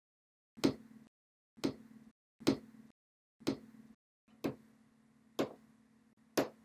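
A finger tapping on a tabletop: seven sharp taps, about one a second.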